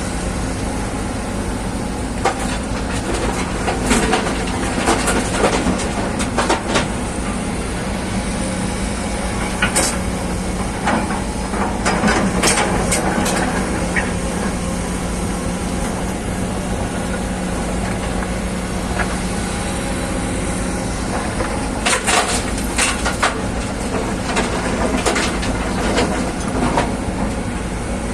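Excavator's diesel engine running steadily, with several bursts of clanking and knocking during loading.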